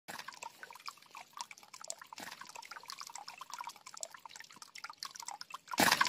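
Water trickling and dripping from a waterfall of cement leaves into a small cement fish pond, a patter of fine drips. Near the end it gets suddenly louder.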